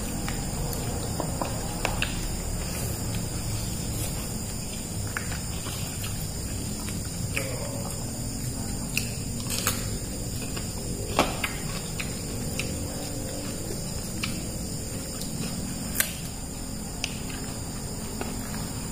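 Steady high-pitched chirring of insects over a low rumble, with scattered small clicks and a few sharper knocks from a meal eaten by hand off plastic plates. The sharpest knocks come about eleven and sixteen seconds in.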